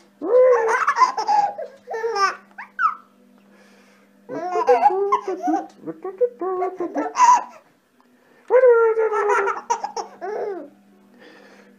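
Baby laughing and babbling in three bouts of a couple of seconds each, with short pauses between.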